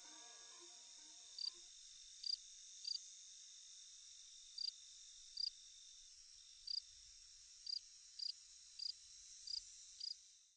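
Crickets chirping faintly: about a dozen short, high chirps at uneven intervals over a steady high hiss.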